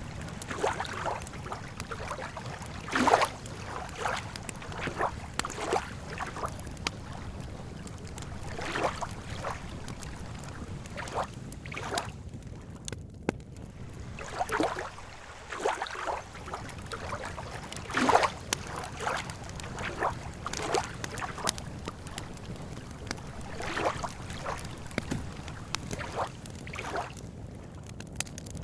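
Wood campfire crackling with irregular sharp pops, two louder ones about 3 and 18 seconds in, over a steady low wash of lake water lapping.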